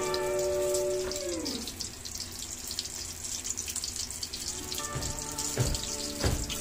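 Oil sizzling steadily as spring rolls deep-fry in a wok, under background music whose held notes slide down and fade about a second and a half in. A few sharp clicks near the end.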